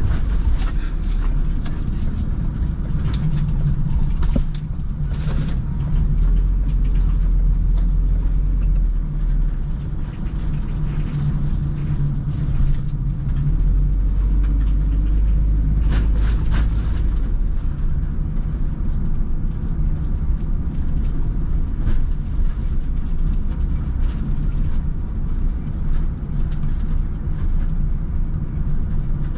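Road and engine noise inside a moving vehicle's cabin: a steady low rumble that swells and eases a little, with scattered clicks and creaks from the interior.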